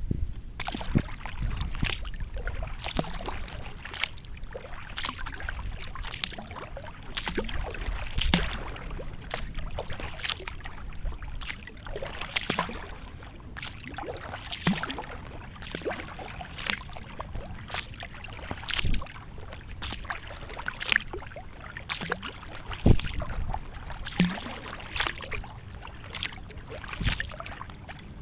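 Sea kayak being paddled at a steady pace: the paddle blades splash into the water about once a second, over a steady low rumble.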